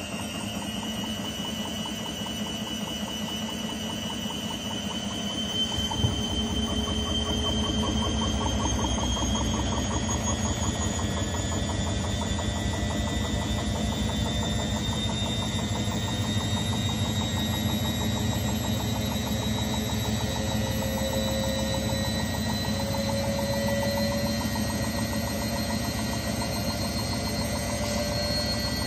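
BEKO WRE6512XWWE washing machine spinning up: the motor's whine rises slowly in pitch. About six seconds in there is a knock, then a louder, fast rhythmic rumble of vibration that keeps going. Heavy vibration during the spin is the fault reported on this machine.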